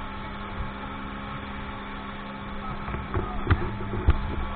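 Speedboat motor running at speed: a steady hum under a noisy hiss, with two sharp thumps about three and a half and four seconds in.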